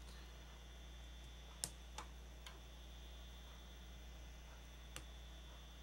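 Four small clicks of tiny plastic toy-brick pieces being handled and fitted together, the sharpest about a second and a half in and the last near the end, over a steady low hum.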